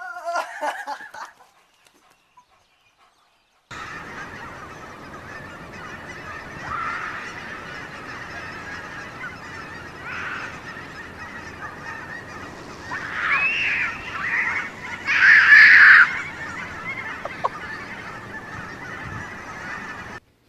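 Geese honking over steady background noise, with a few separate calls, the loudest about fifteen seconds in.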